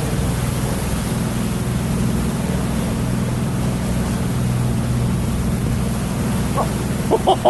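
Twin Yamaha 225 outboard motors running steadily at speed, a low even drone under a rush of wind and churning water.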